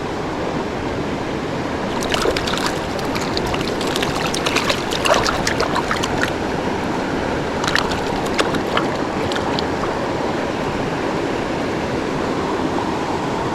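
Steady rush of creek water, with irregular sharp clicks and splashes through the middle stretch.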